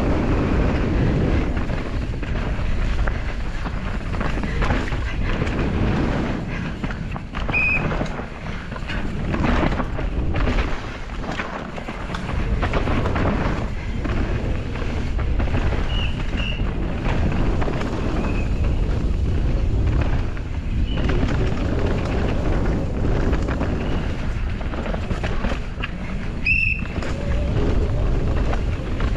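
Downhill mountain bike ridden fast over rough ground: wind buffeting the microphone over a constant clatter and knocking of the bike on the terrain, with a few brief high squeaks.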